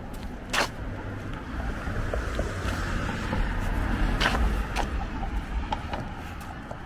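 A car passing on the street, its tyre and engine noise swelling to a peak about four seconds in and then fading. Two sharp clicks stand out, one about half a second in and one near the car's peak.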